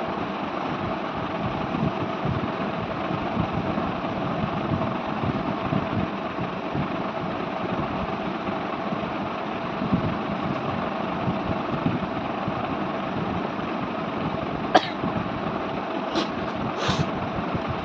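A steady machine-like hum with a faint constant tone. A single sharp click comes about fifteen seconds in, and a few short, faint sounds follow near the end.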